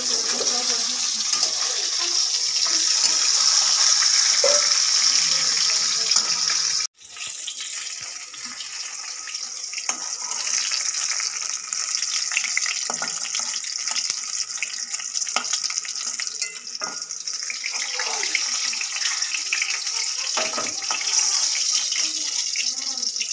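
Fish pieces frying in hot oil in a metal wok, a steady high sizzle, with a metal spatula scraping and knocking against the pan as the fish is turned and lifted out. The sizzle is loudest for the first seven seconds, cuts off abruptly, then comes back fainter.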